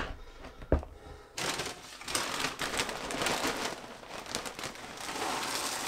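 A couple of light knocks, then from about a second and a half in, the plastic inner bag of a box of breakfast cereal crinkling continuously as it is picked up and handled.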